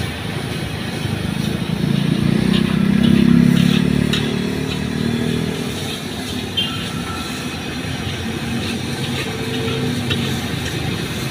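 A motorbike engine passes, loudest about three seconds in and fading soon after, while a metal spatula scrapes and taps against a wok as fried rice is stir-fried.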